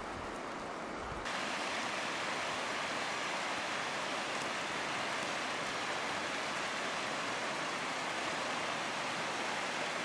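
Steady rushing hiss of a river flowing past snowy banks. For the first second or so there is a quieter snowy-forest hush with a low rumble, which cuts suddenly to the louder river.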